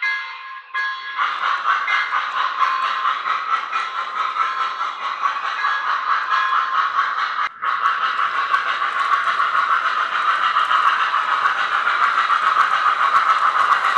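O gauge model train running on three-rail tubular track: a steady, busy rattle of wheels clicking over the rails, with a brief break just past halfway and growing louder near the end.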